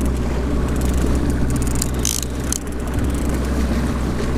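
Outboard motor running steadily, with water splashing as a hooked brown trout thrashes at the surface beside the boat, the loudest splash about two seconds in.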